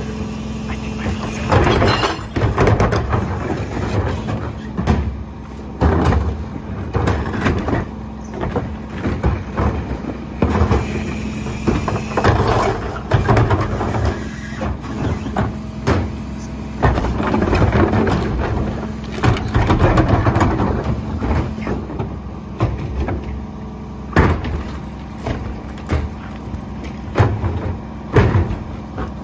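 Rear-loader garbage truck running with a steady hum while plastic wheeled carts are tipped into its hopper, banging and clattering against the loader edge as trash drops in, again and again.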